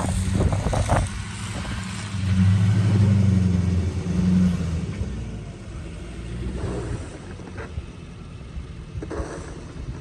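A vehicle engine running with a low rumble, rising for a few seconds about two seconds in and then easing off.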